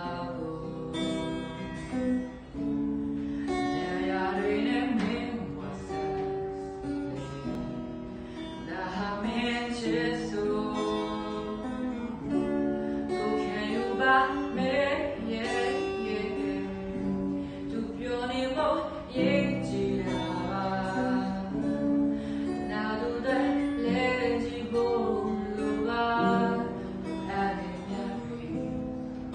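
Acoustic guitar strummed as accompaniment while a voice sings a Burmese-language pop song.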